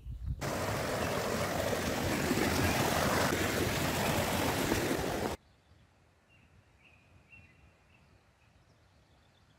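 Mountain stream rushing and splashing over rocks, a loud steady water noise that cuts off abruptly about five seconds in.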